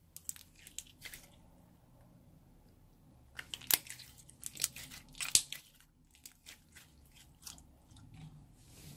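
Transparent slime being pressed and worked, giving sharp crackling clicks and pops in clusters. They are densest and loudest about halfway through, and sparser towards the end.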